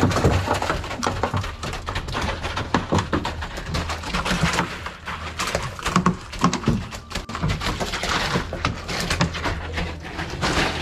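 Handling noise on a fibreglass fishing boat: dense knocks, clicks and clatter as a rod is moved and a fish box is opened and a fish handled, over a steady low hum and a rushing haze of wind and water.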